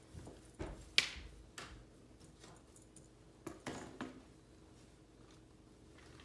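A few scattered clicks and knocks of a plastic toy doll stroller being handled, the sharpest about a second in and another small cluster between three and four seconds in.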